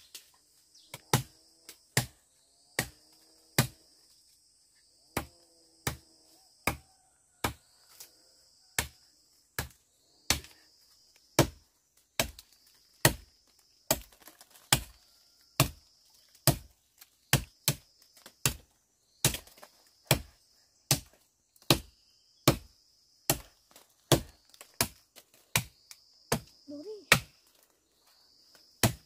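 Machete chopping into a small tree trunk: a steady run of sharp strikes, about one every three-quarters of a second, with insects trilling high in the background.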